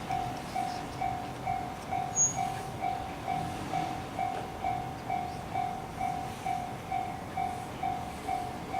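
Japanese railway level-crossing warning bell ringing, an even electronic ding about twice a second, over the steady noise of a passing electric train. One short, sharp high squeak about two seconds in.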